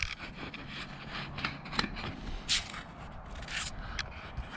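Footsteps crunching and scraping over loose wood chips and bark scraps, in a scatter of short crunches.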